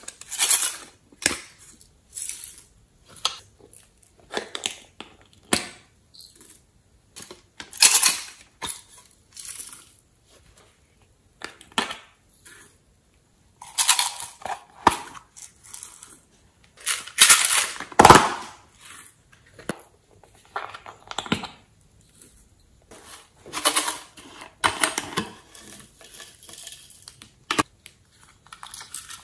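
Small plastic containers and lids being handled and opened: scattered clicks and taps with short crackling noises, the loudest cluster about two-thirds of the way through.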